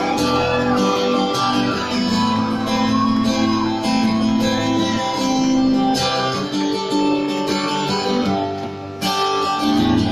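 Steel-string acoustic guitar strummed live in the instrumental intro of a song, before any singing comes in. The playing stops briefly a second before the end and then picks up again.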